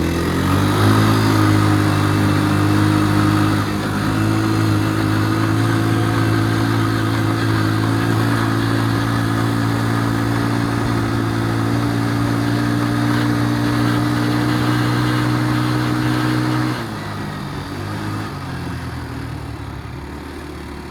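2011 Can-Am DS90 ATV engine warming up with the choke off: it holds a steady raised speed, then drops to a lower idle about 17 seconds in.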